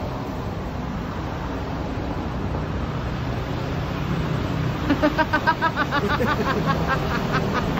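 Steady street traffic noise. From about five seconds in, a quick run of knocks on a shop's glass window, about seven a second.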